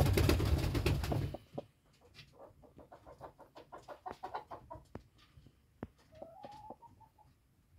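A loud rushing burst for about the first second and a half, then a hen's soft, rapid clucking, a string of quick little sounds that thickens for a few seconds, with a short higher note near the end.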